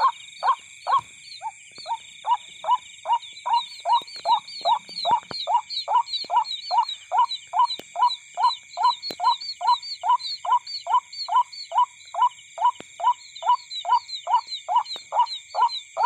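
An animal call, a short note repeated at an even pace of about three a second without a break, over a steady high-pitched insect chorus.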